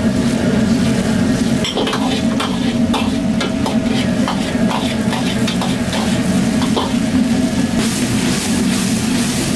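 Stir-frying in a steel wok over a gas wok burner: a steady low rush from the burner under sizzling sauce, with a ladle clacking and scraping against the wok in quick strokes from about two seconds in. The sizzle grows louder near the end as the food is tossed.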